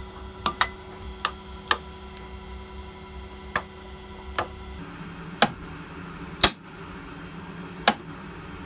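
Sharp, single clicks at irregular intervals, about ten in all, over a steady low hum with faint held tones; the hum and tones stop a little before halfway through.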